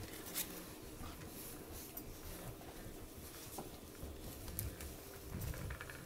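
Faint scuffling and light pattering of Bullmastiff puppies about 8 weeks old playing on a rug among rope and plush toys, with a few soft clicks and thumps.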